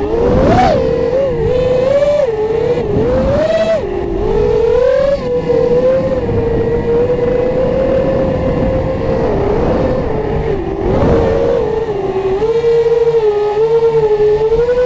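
FPV racing quadcopter's brushless motors and propellers whining, heard from its onboard camera: the pitch swoops up and down as the throttle is worked, holds steady for a few seconds in level flight, with a few swells of rushing air.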